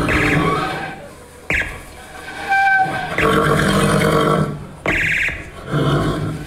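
Harmonica played into a microphone in a run of short chord blasts and held notes, each starting sharply, with a longer held chord in the middle.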